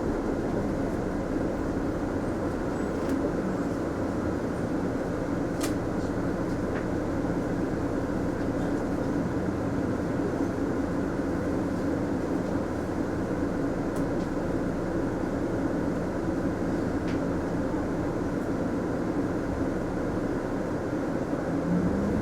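Inside a Mitsubishi Fuso Aero Star city bus under way: the engine and road noise drone steadily, with a few faint clicks. Near the end the engine note starts to rise as the bus picks up speed.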